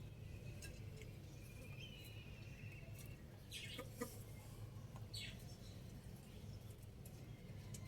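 Chickens making faint, scattered clucks and a brief thin high call over a low steady background hum.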